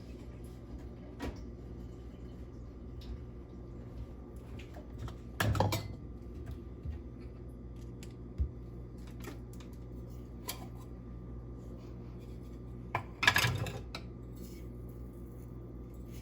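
Kitchen utensils and containers being handled: scattered light clicks and taps, with two short louder clatters about five and a half and thirteen seconds in, over a faint steady hum.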